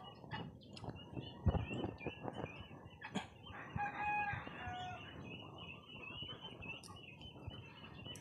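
A rooster crows once, about four seconds in, a single call about a second long that falls in pitch. Under it, high chirps repeat throughout, along with the soft pecking and dabbling of ducks feeding on scattered feed.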